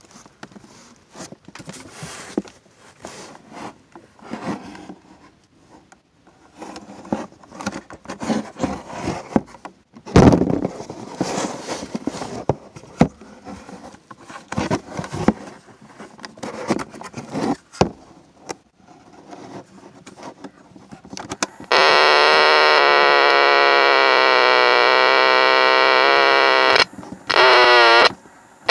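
Clicks and scrapes of a GE 3-5346A battery cassette recorder being handled and its buttons pressed, then, about 22 seconds in, a sudden loud, steady buzzing drone from its speaker, wavering slightly, played with no cassette inside. The drone cuts out near the end and comes back briefly.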